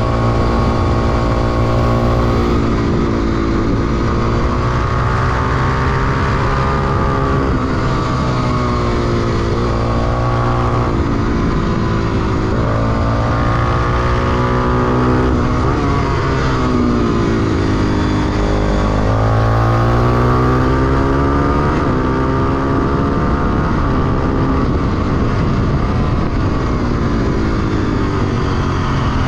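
Honda XR250 Tornado's single-cylinder four-stroke engine at racing pace, recorded on board; its pitch climbs under acceleration and drops back several times as it is worked through the gears and corners.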